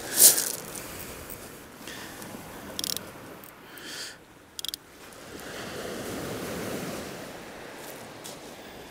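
Small waves breaking and washing up a shingle beach, the surf swelling louder in the second half. A sharp rustle right at the start and a few fainter ones break in.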